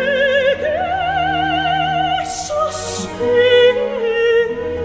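Operatic singing from a documentary's music score: long held notes with wide, even vibrato, moving from one pitch to the next.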